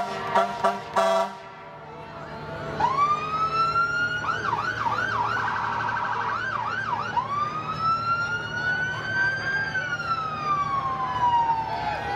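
Fire department vehicle's siren: a rising wail, then a fast yelp for a few seconds, then a slow wail that climbs and falls away before starting to rise again near the end. Right at the start, a quick run of short horn blasts.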